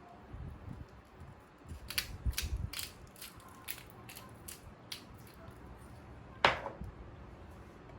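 A run of quick mechanical clicks, ratchet-like, for about three seconds, then one sharp louder click about six and a half seconds in.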